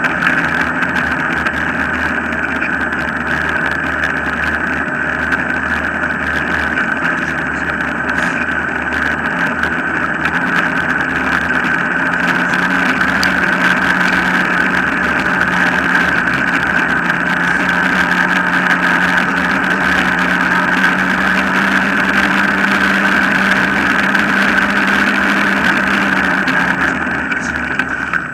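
Steady rolling noise of a dog-drawn rig's wheels running on a tarmac path, with a faint steady hum in the middle stretch.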